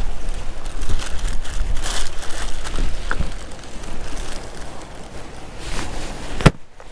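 Wind rumbling on the microphone, with rustling and clicks from handling bait packs in a cooler box. A sharp knock comes about six and a half seconds in, after which the sound briefly drops away.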